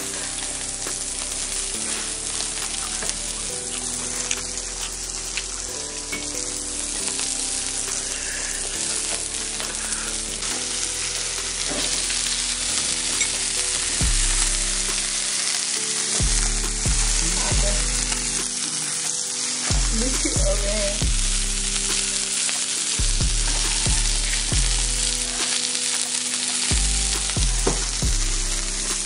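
Food sizzling steadily in a hot pan, a continuous frying hiss. Low notes of background music sit underneath, with the bass growing stronger about halfway through.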